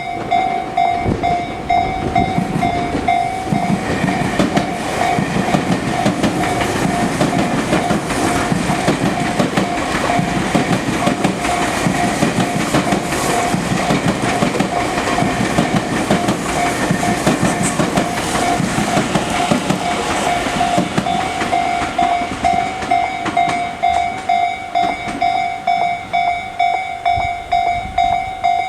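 Electronic level-crossing bell of the Tobu Tojo Line type ringing a steady repeating ding, about two strokes a second. A Tobu 50050 series electric train passes over the crossing from about three seconds in until about twenty seconds in, its wheel and rail noise partly drowning the bell.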